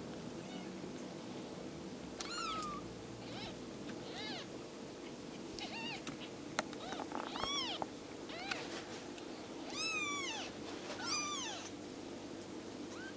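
One-week-old kittens mewing: thin, high mews, each rising and then falling in pitch, about nine of them scattered irregularly, the loudest near the end. A steady low hum runs underneath.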